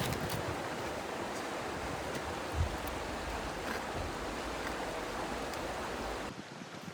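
Steady rush of flowing water, even and unbroken, that cuts off abruptly near the end.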